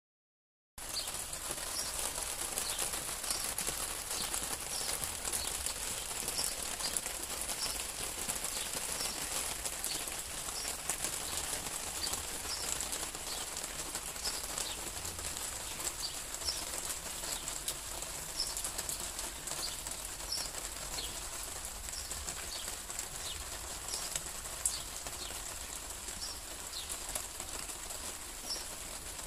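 Steady rain falling on a garden, an even hiss that starts about a second in. A small bird chirps over it in short, high calls, repeated every half second or so.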